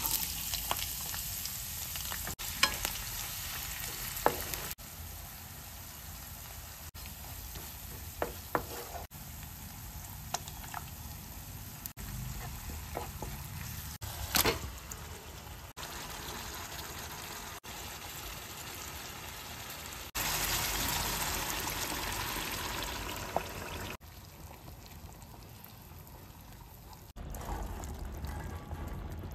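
Food sizzling as it fries in a pan, with stirring and occasional sharp clicks of a utensil against the pan. The sound comes in short edited segments, its level jumping abruptly every few seconds, loudest a little past the two-thirds mark.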